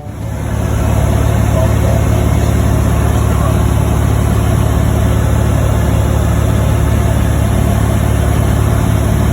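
Airplane engine running steadily, a loud even drone with a strong low hum, heard from inside the cabin; it fades up over the first second.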